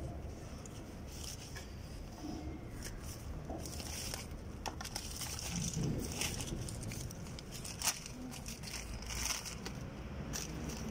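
Plastic packaging crinkling and rustling as hands pull open a plastic courier mailer and handle a clear plastic bag, in irregular crackles with a sharper click about eight seconds in.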